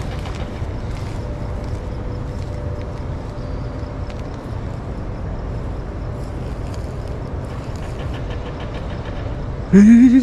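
Steady low rumble, then near the end a short, loud rising cry.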